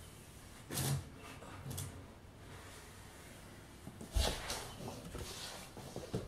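Soft handling noises: a paper towel wiping and rustling over a wooden cedar chest, with two louder short bumps, about a second in and about four seconds in, as she shifts and knocks lightly against the chest.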